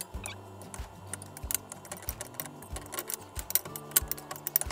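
Metal kitchen tongs clicking and tapping against a glass bowl while coating chicken in flour: quick light clicks that come thicker in the second half, with background music with a steady beat underneath.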